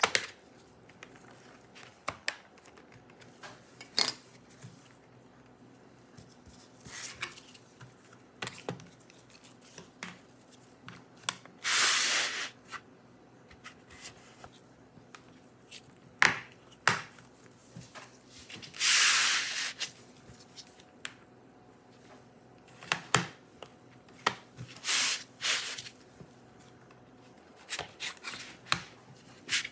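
Thin plastic pry pick scraping along the seam of an HP OMEN 16 laptop's bottom cover, with scattered sharp clicks as the cover's plastic clips pop loose. Several longer scrapes, each about a second, stand out among the clicks.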